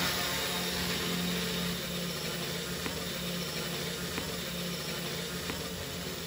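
Home-built quadcopter's electric motors and propellers buzzing steadily as it lifts off and climbs, slowly growing fainter as it rises.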